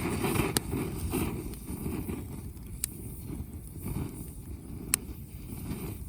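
Wood fire burning, a steady low rush broken by a few sharp crackling pops from the firewood.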